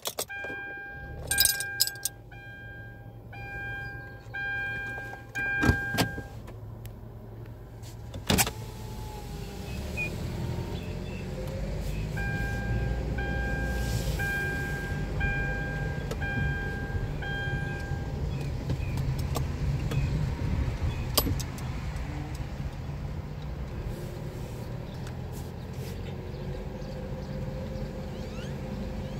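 Inside a moving car: a dashboard warning chime beeps steadily, a little over once a second, for about five seconds, then again for about six seconds about midway. A few sharp clicks and knocks come in the first several seconds, and the engine and road rumble grows steadily louder as the car gets under way.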